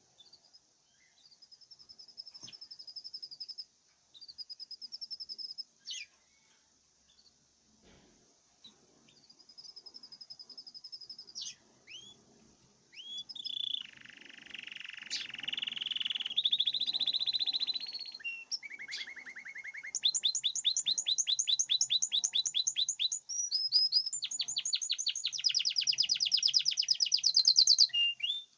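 Caged songbird singing: short separate whistled phrases at first, then from about halfway a long run of fast trills and rapid repeated-note rolls, loudest near the end.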